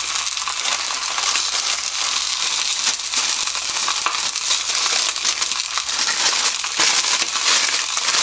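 A sheet of brown cooking paper crinkling and crumpling as it is handled and folded over a salted mackerel fillet, with hot oil sizzling steadily in the pan underneath.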